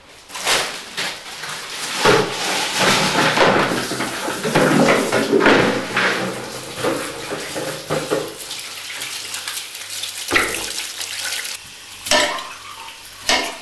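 Kitchen clatter: knives and a wooden pestle knocking against a granite worktop and a mortar, a series of sharp knocks over a continuous rushing noise.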